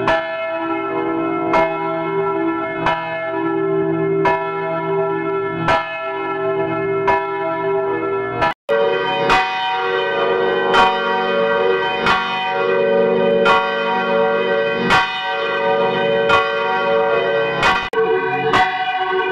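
Church bell tolling, a stroke about every second and a half, each note ringing on into the next. About eight and a half seconds in it breaks off sharply and a second bell recording starts, with a fuller, brighter ring at the same pace.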